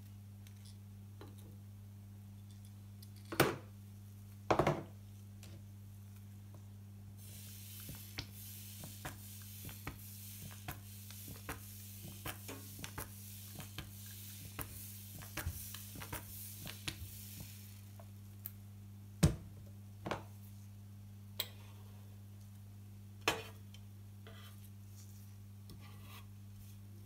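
Kitchen utensils knocking and tapping, two loud knocks early on, then chocolate pancake batter sizzling softly as it is squeezed from a squeeze bottle in thin lines onto a hot crepe pan, with small clicks throughout. More knocks follow as a plastic spatula and tongs lift the cooked strips. A steady low hum runs underneath.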